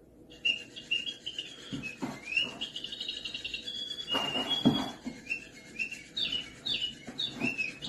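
A small bird chirping rapidly and repeatedly in short high calls. A few soft knocks or rustles come through, the loudest about halfway through.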